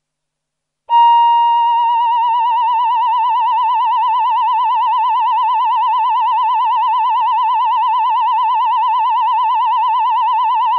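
Roland VP-330 Vocoder Plus 'Human Voice' male preset holding one high synthesized note. It starts suddenly about a second in, with a brief swell at the attack. After that it settles into a steady, even vibrato.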